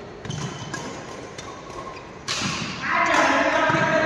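Badminton play in a hall: a light hit just after the start, then a sharp, loud hit a little over two seconds in, racket on shuttlecock, with thuds on the court. A loud held tone with stacked pitches starts about three seconds in and carries on.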